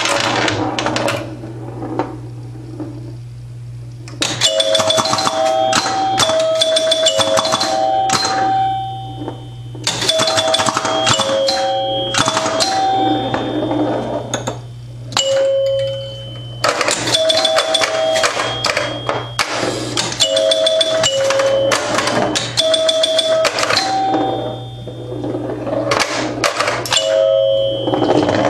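1974 Bally Champ electromechanical pinball machine in play: its score chimes ring in quick runs on three pitches amid rapid clicking and clacking of relays, stepper units and score reels, over a steady low hum. There are brief lulls between runs.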